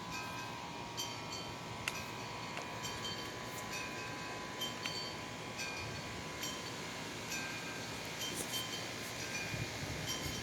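Wind chimes ringing irregularly, single notes at several pitches struck at random moments over a steady hiss.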